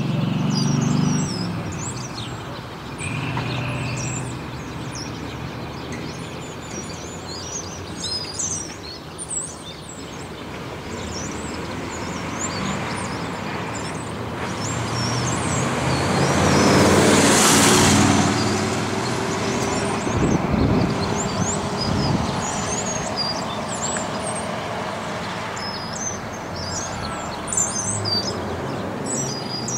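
Small birds chirping throughout, over a motor vehicle passing along the street that swells to its loudest a little past the middle and then fades away.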